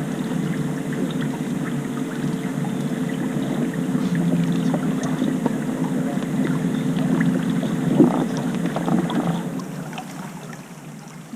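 A boat's motor running with a steady hum, fading away about ten seconds in. A single sharp knock sounds about eight seconds in.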